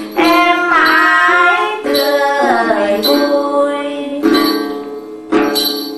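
Tày then singing by women's voices over plucked đàn tính, long-necked gourd-bodied lutes. The voice glides down through a phrase in the first half, then two plucked chords about four and five and a half seconds in ring and fade as the song closes.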